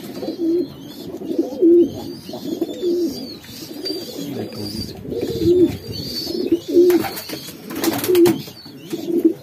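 Domestic pigeons cooing over and over, with faint high peeping above the coos from young pigeons begging for grain. Two brief noisy bursts come about seven and eight seconds in.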